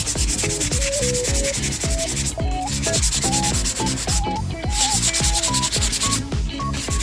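Sanding of cured polyester body putty on motorcycle bodywork: a rasping scrub that comes in runs of a second or so with short breaks between them. Background music with a melody and steady beat plays throughout.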